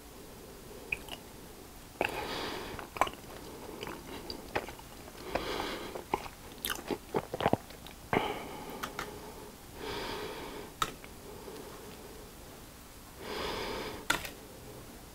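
White sauce squeezed from a plastic squeeze bottle onto fried cheese balls, with a quick cluster of sharp squirting pops and clicks near the middle. Close-miked breaths through the nose come and go every few seconds.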